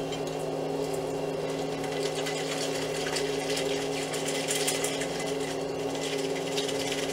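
Shaken cocktail being strained from a metal shaker tin into a martini glass: a thin, steady trickle of liquid. A steady background hum runs underneath.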